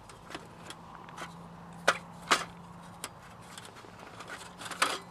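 Split log quarters knocking against each other and against the sheet-metal walls of a folding camp stove as they are set in place: a handful of sharp wooden knocks, the two loudest about two seconds in.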